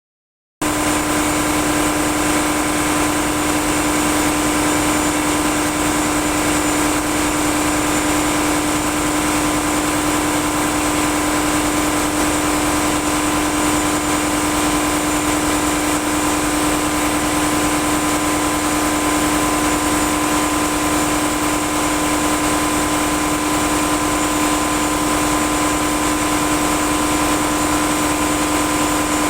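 Ship's engine-room diesel machinery running with a steady, loud drone and a constant hum and whine, unchanging throughout; it cuts in abruptly about half a second in.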